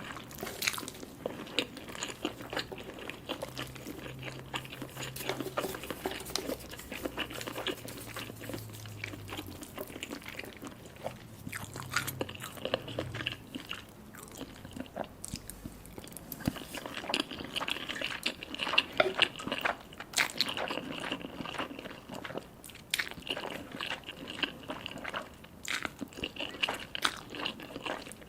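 Close-up eating sounds: chewing, lip smacks and slurps of spicy ramen noodles, fish balls and mini sausages, with frequent short wet clicks and crunches.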